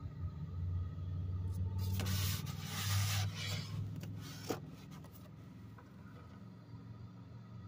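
Rubbing and scraping handling noise close to the microphone, loudest between about two and three and a half seconds in, with a single sharp click about four and a half seconds in, over a steady low hum.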